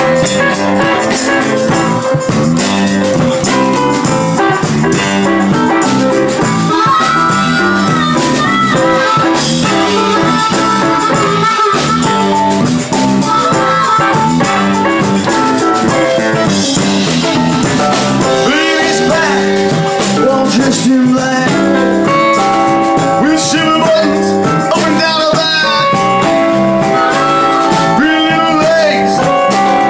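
Live blues-rock band playing: electric guitars, bass, drums and percussion, with a harmonica played through a vocal microphone.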